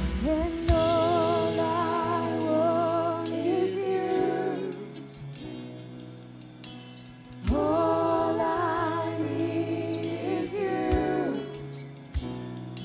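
Live worship band playing: a singer's long held notes with vibrato in two phrases, a quieter pause between them, over bass guitar, drums and keys.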